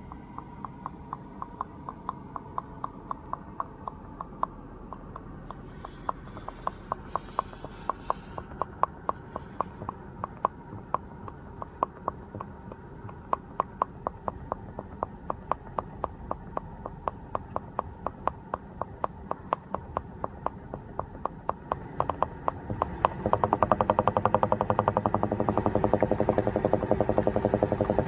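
Regular popping clicks, about three a second, over a steady low hum: the bubbling/popping noise of a 2016 BMW X5 F15. About 23 seconds in, the popping gets louder and denser.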